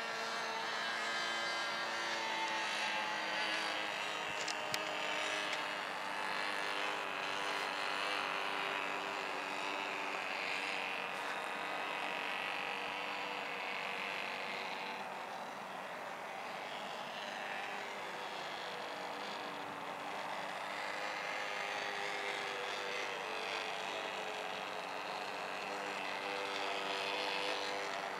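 Radio-controlled old-timer model airplane in flight, its motor droning steadily, the pitch drifting slightly up and down as it flies around.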